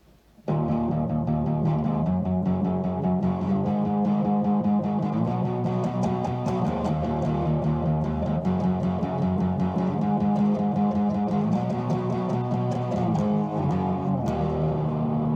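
Intro music: guitar-led music with plucked and strummed notes and a bass line, starting abruptly about half a second in.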